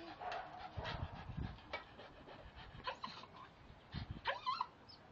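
Dog panting close by, with scattered small ticks and a few soft low thumps.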